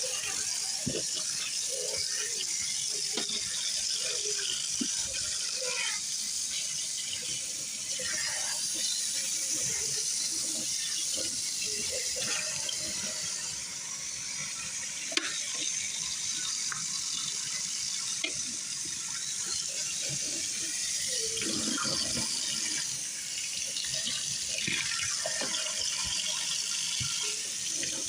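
Kitchen tap running steadily into a sink, with dishes clinking and knocking, and one sharper clack about halfway through.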